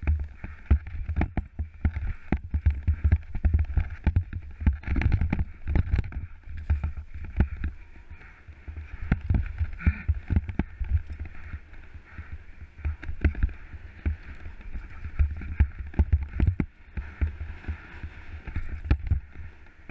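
Scott Gambler 10 downhill mountain bike running fast over a rocky dirt trail: a steady rumble of tyres over stones and roots, with frequent sharp knocks and rattles as it hits bumps. Heard from a helmet-mounted camera.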